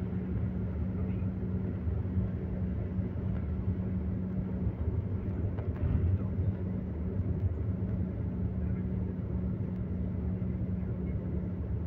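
Road and engine noise heard inside a moving vehicle: a steady low rumble with a steady low hum, a little louder about six seconds in.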